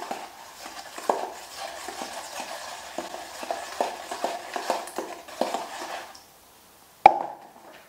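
A spoon stirring a baking soda and vinegar paste in a bowl, with light irregular scrapes and clinks for about six seconds. A single sharp knock follows about seven seconds in.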